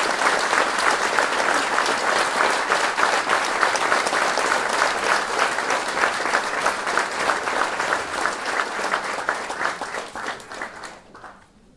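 Audience applauding, many hands clapping together; the clapping thins out and dies away near the end.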